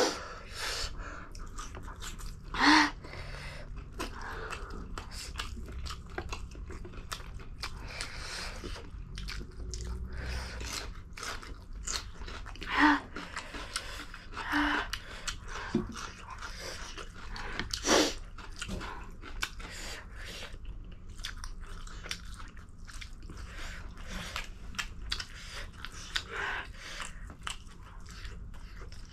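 Close-miked chewing of spicy ramen noodles and eggs, with many small wet mouth clicks and a few louder sounds about 3, 13 and 18 seconds in.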